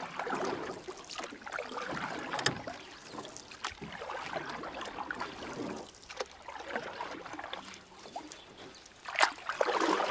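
Trickling, gurgling water with irregular small splashes and ticks, and one sharper, louder swish about nine seconds in.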